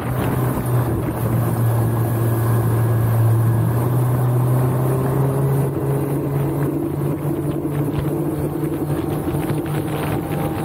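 Suzuki 140 hp four-stroke outboard running steadily at cruising speed, its note edging slightly higher about halfway through, with wind on the microphone and water rushing past the hull.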